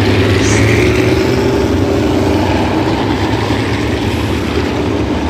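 Sprint car engines running slowly and steadily, a loud even drone that drifts a little in pitch, as the cars circulate under caution.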